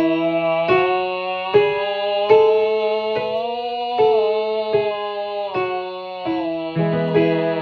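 A voice singing a sustained, connected vocal exercise over an instrumental accompaniment that strikes a new chord about every three-quarters of a second. The sung pitch steps along with the chords.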